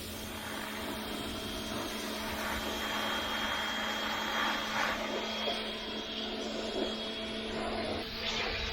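Pressure washer running steadily: a motor drone under the hiss of the high-pressure water jet spraying the house siding.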